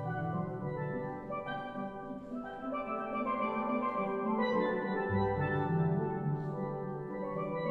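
Steelpan ensemble playing, with a tenor pan solo part over the band. Strong low notes come in about five seconds in.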